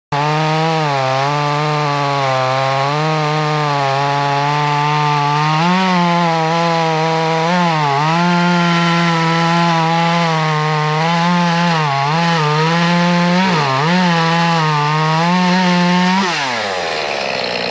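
Small one-handed chainsaw running at full throttle through a thick log, its pitch dipping and recovering again and again as the chain bogs under load in the cut. About a second before the end the throttle is released and the pitch falls away.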